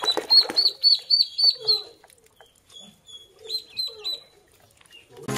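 Ducklings peeping, a rapid run of short high peeps for about two seconds that then thins out to scattered peeps.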